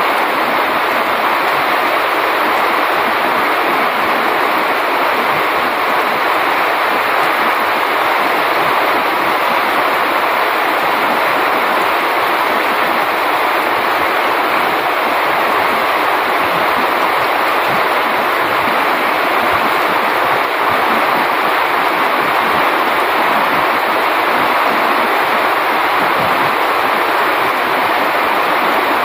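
Heavy rain falling steadily on coconut palm and banana leaves, a dense, even hiss that does not let up.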